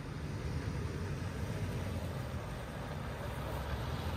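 Toyota 4Runner's V6 engine running at low speed as the SUV pulls out of a campsite, a steady low rumble that grows slowly louder near the end as it comes closer.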